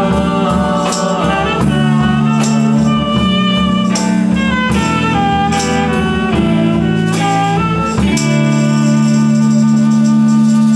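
Live band playing: a saxophone melody over strummed acoustic guitar with hand-percussion strokes, settling about eight seconds in onto a long held closing chord while the percussion keeps shaking.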